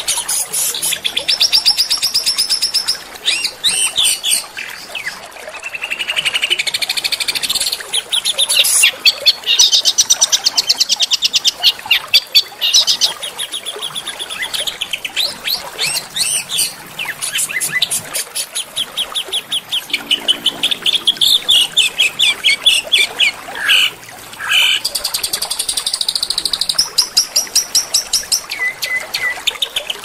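Small songbirds singing fast, high-pitched trills and chattering phrases, the notes repeated rapidly and the phrase changing every few seconds.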